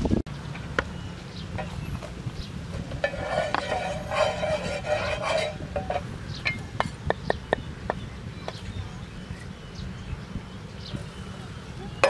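Sharp clinks and taps of cooking utensils as a cleaver, cutting board and frying pan are handled, over a steady low rumble of wind on the microphone. About three seconds in, a pitched call sounds for a couple of seconds and stops abruptly.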